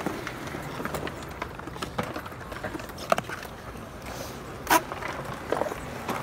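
Skateboard wheels rolling on concrete with scattered clacks and knocks from the board. There is one sharp knock about three seconds in, and a brief, loud, high-pitched sound just before five seconds.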